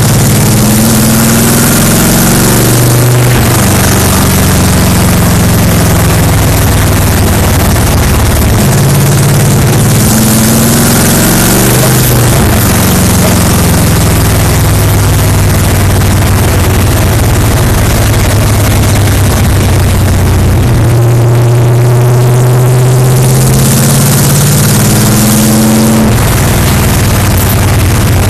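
Stock car's V8 engine at racing speed, heard loud from inside the cockpit. Its pitch climbs and drops again and again as the car accelerates and lifts around the laps.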